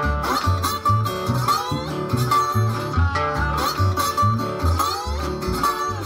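Delta blues instrumental: a Johnson resonator guitar played with a slide in open D, with sliding notes, over harmonica and a washtub bass plucking out low notes about twice a second.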